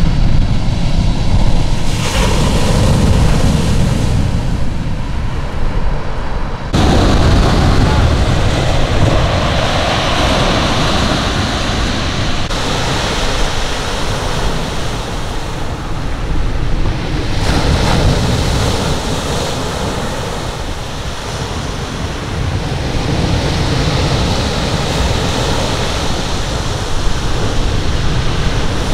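Sea surf washing onto the shore, with wind rumbling on the microphone. The sound shifts abruptly in character a few times, most clearly about 7 seconds in.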